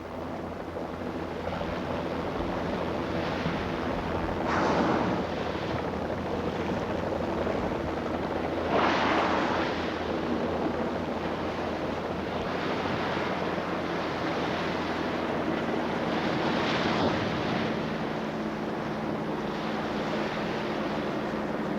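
Sea waves washing, surging about every four seconds over a steady low hum.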